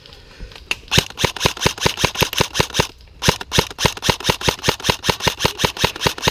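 Airsoft electric rifle (H&K 416 CQB AEG) firing rapid single shots close by, a sharp click with each shot at about five a second, in two long strings with a short pause about three seconds in.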